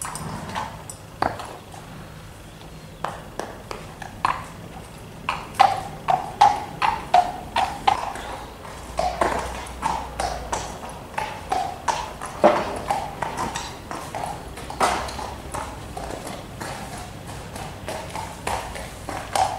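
Horse's hooves clip-clopping at a walk on hard paved ground: a steady run of sharp knocks, each with a short ringing ping, louder in the middle as the horse passes closest.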